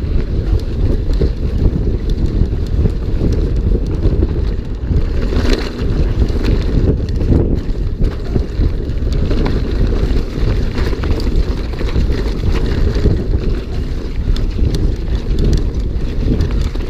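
Wind buffeting the microphone of a mountain biker riding a dirt trail at speed, a steady loud rumble with scattered knocks and rattles over rough ground.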